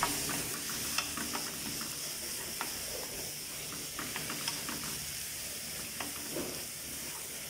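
Grated cauliflower sizzling in olive oil in a frying pan while a wooden spatula stirs it: a steady frying hiss with scattered light taps and scrapes of the spatula against the pan.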